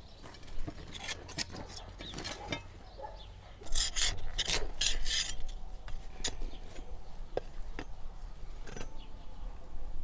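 Metal scraper scraping baked flatbreads off the inner brick wall of a tandoor: a quick run of scrapes around the middle, with scattered clicks of metal tools before it.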